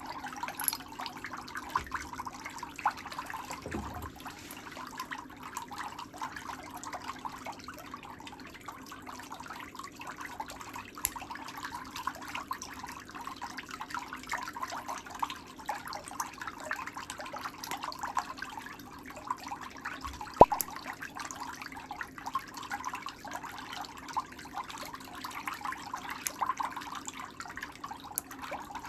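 Nail nippers clipping a thickened, yellowed big toenail: a run of small snips, clicks and crackles over a faint steady hum, with one sharp snap about twenty seconds in.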